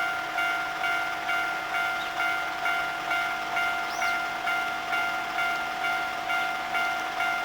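Japanese railway level-crossing alarm sounding its electronic warning bell: a steady, evenly repeated ding, a little over two strikes a second, signalling that a train is approaching.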